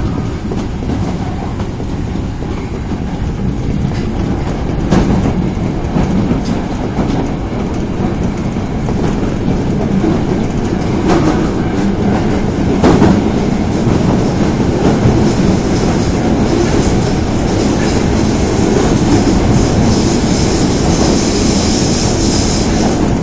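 Osaka Municipal Subway 22 series train running at speed, a steady rumble with occasional sharp clicks from wheels crossing rail joints. In the last several seconds a high-pitched wheel squeal rises over the running noise.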